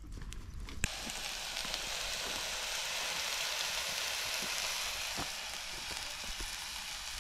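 Steady sizzling hiss with scattered small crackles from a scored pork joint in a cast-iron roasting tray on a grill over a wood fire. It starts abruptly about a second in.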